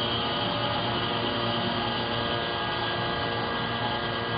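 Walter Xtra-tec six-insert disc milling cutter cutting into 42CrMo4 steel: steady machining noise with a high ringing tone running over it.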